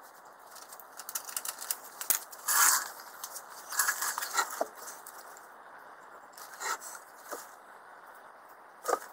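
Rustling and light metallic clicks of steel spade drill bits being handled in a wooden holder block on a workbench, with a few short squeaks.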